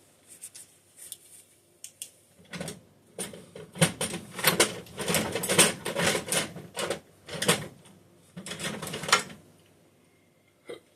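Screwdriver bits and small tool cases clicking and clattering as a tool kit is rummaged through. The rattling runs in quick clusters from about two seconds in and stops about a second before the end.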